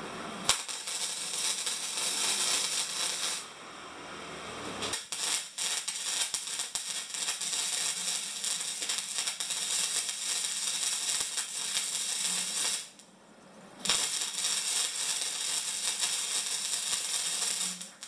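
Stick (arc) welding on a steel square-tube frame, the arc crackling steadily. There are three runs, about three, eight and four seconds long, with short breaks between them, and the first begins with a sharp click.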